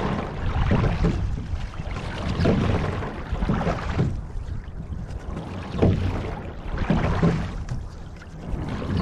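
Water rushing and splashing along the hull of a rowing shell under way, swelling and easing with the rowing strokes.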